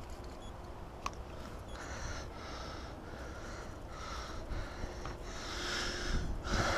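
A person breathing audibly in short repeated breaths that grow louder toward the end, over a low wind rumble on the microphone, with a sharp click about a second in.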